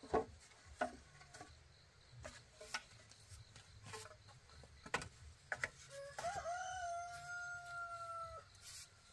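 A rooster crows once about six seconds in, its call ending in a long held note. Before that come scattered short knocks and clucks.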